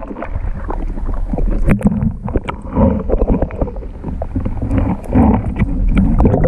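Muffled water sloshing and swirling around a camera held just under the surface of a shallow lake, with frequent small knocks against the housing.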